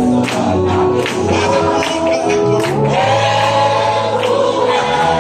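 Church congregation singing a gospel worship song together over musical accompaniment, with a held bass note and a few sharp percussive hits in the first half.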